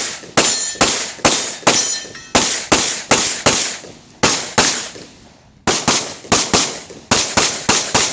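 Open-class competition pistol fired rapidly through a USPSA stage: about twenty loud, sharp shots in quick groups, a few per second, with a pause of about a second a little past halfway before the string resumes.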